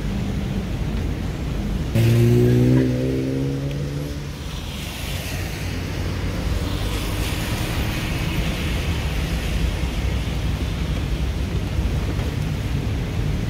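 Steady low rumble of a car's engine and tyres on a wet road, heard from inside the cabin. About two seconds in a sudden loud low tone cuts in, drifts slightly upward in pitch and fades away over the next two seconds.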